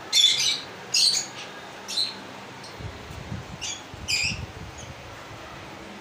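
Lovebirds calling: about five short, high squawks. The two loudest come within the first second and a half, and weaker ones follow around two and four seconds in.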